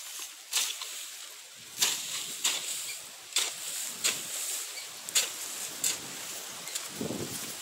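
Hoe strokes chopping and scraping through weeds and hard, dry soil, about eight sharp rustling strikes at an uneven pace of roughly one a second. A brief low rumble comes near the end.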